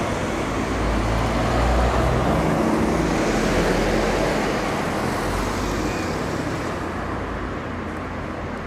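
Road traffic: a double-decker bus's engine rumbling as it passes close by, then a car driving past, with the noise easing off near the end.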